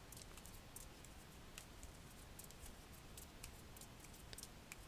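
Near silence: room tone with faint, irregular clicks from a computer keyboard and mouse being used.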